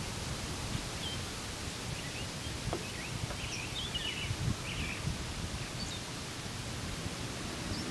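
Steady outdoor background noise: a low wind rumble on the microphone, with a few short bird chirps around the middle.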